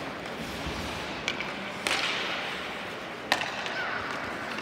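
Ice hockey play in an echoing rink: three sharp clacks of sticks on the puck and ice, the second followed by a hiss that fades over about a second, over steady arena noise.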